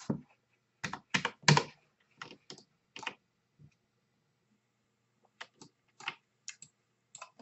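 Computer keyboard typing: about a dozen short, irregular key clacks in two bursts, with a pause of about a second and a half between them.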